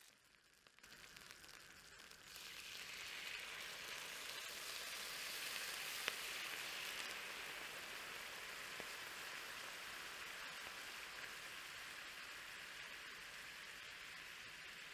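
Turkey shanks sizzling in bubbling butter and oil in a cast-iron skillet: a steady crackling sizzle that grows louder about two seconds in, with a single sharp pop about six seconds in.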